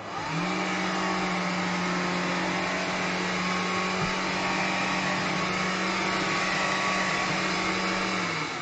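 Vax Glide cordless wet-and-dry hard-floor cleaner switched on. Its motor spins up quickly, runs steadily with a whine, then winds down shortly before the end.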